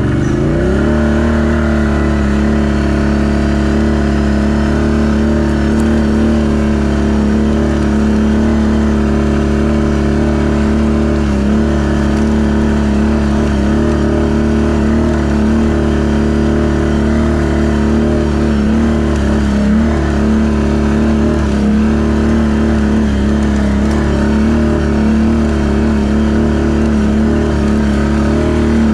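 Can-Am ATV engine pulling away, its pitch rising over the first second, then running at steady revs as the quad drives on.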